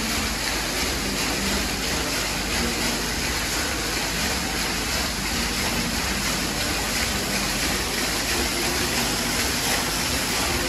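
Steady rushing of running water, an even gush that does not change or break.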